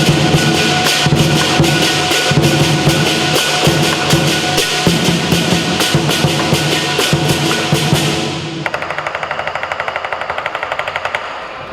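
Southern lion dance percussion: the big drum, cymbals and gong playing loudly together. About eight seconds in the full ensemble drops away, leaving a quieter, rapid, even ticking of about eight strokes a second.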